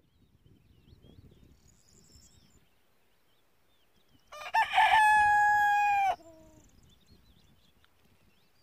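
A rooster crows once: a broken, stuttering start runs into one long held note that cuts off abruptly with a short low tail.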